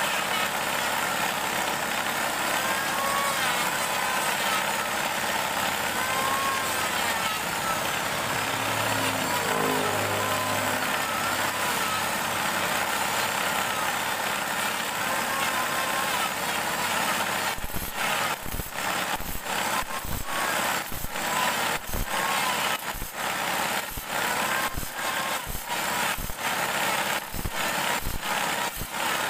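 Table saw running with a steady, even hiss as a bandsaw blade is sharpened on it. A little over halfway in, short regular hits start, about two a second.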